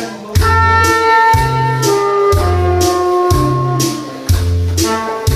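Saxophone playing a held-note melody over a backing track with a steady bass-and-drum beat.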